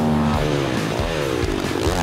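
Dirt bike engines revving on the track, their pitch climbing and then falling as they accelerate and ease off or go past.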